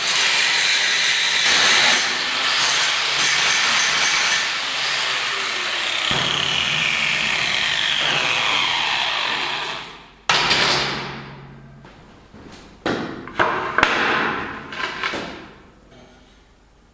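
A power tool running steadily and loudly for about ten seconds, then stopping, followed by several separate knocks and clatters.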